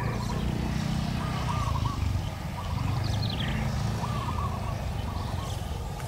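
A steady low rumble under a small bird's short chirping call, repeated every second or so; a brief higher twitter comes about three seconds in.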